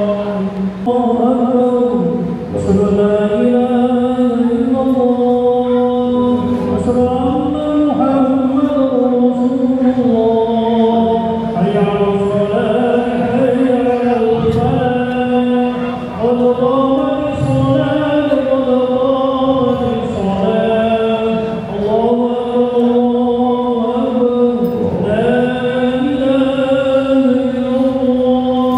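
A single man chanting in Arabic in long, drawn-out melodic phrases, with short pauses for breath between them. This is recitation leading the congregational prayer in a mosque.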